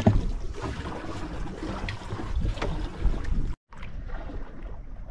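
Wind on the microphone and water sloshing around a small outrigger boat at sea, with a brief cut to silence about three and a half seconds in.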